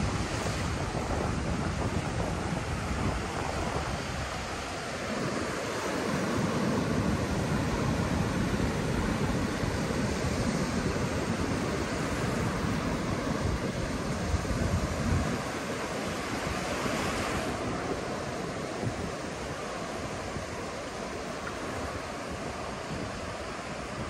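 Sea waves washing onto a beach, with wind rumbling on the microphone, heaviest through the middle.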